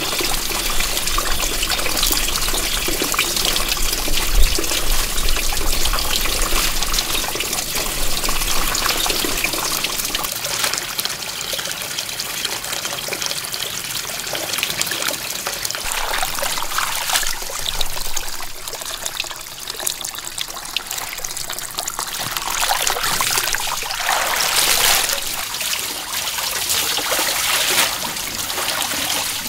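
Water pouring and trickling steadily, with a low rumble in the first several seconds and louder gushing surges about halfway through and again near the end.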